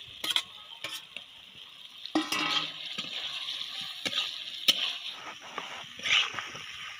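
A metal spatula scrapes food pieces off a steel plate into a kadai and then stirs them through frying masala, the sizzle running under irregular scrapes and clinks of metal on the pan.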